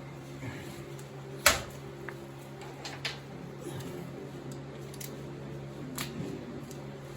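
A few sharp metal clinks and knocks of tools being handled, the loudest about a second and a half in, over a steady low hum.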